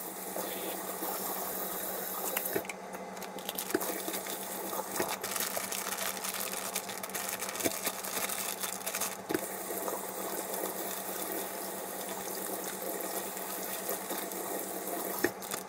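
Kitchen faucet running steadily into a stainless steel sink while plastic food packages are rinsed under the stream, with a few short knocks as they are handled.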